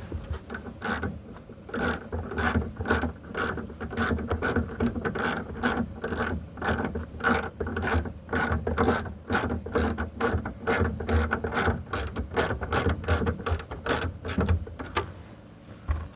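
Ratcheting screwdriver clicking in quick, even strokes, about three a second, as screws are driven to fasten a 6x9 car speaker back into its mount. The clicking stops about fifteen seconds in.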